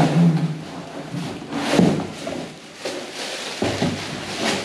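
Pedestal fan parts and their packaging being handled during unboxing: rustling, with several separate clunks as pieces are lifted and set down.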